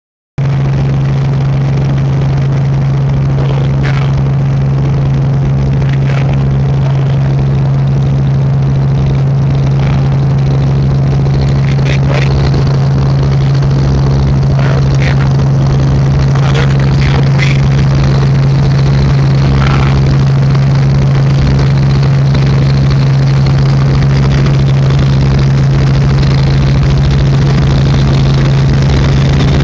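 Helicopter running steadily in flight: a loud, unbroken drone with a strong low hum.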